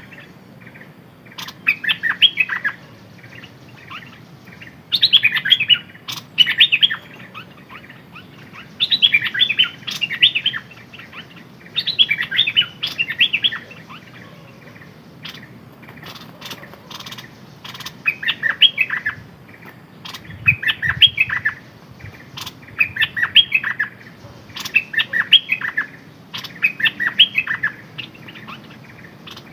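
A songbird, kept as a decoy bird, singing short bright phrases of quick chirpy notes, one phrase every second or two, with a pause of a few seconds about halfway through.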